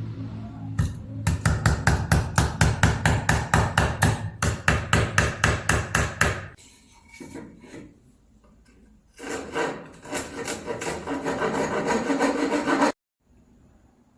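Hand-tool rasping strokes: a fast, even run of about four strokes a second, then after a pause a continuous rasp that cuts off abruptly.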